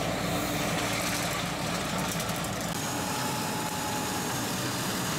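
Tractor engine and farm machinery running steadily in the field, first a tractor pulling a rotary hay rake, then, about two and a half seconds in, a tractor-mounted mower head cutting grass.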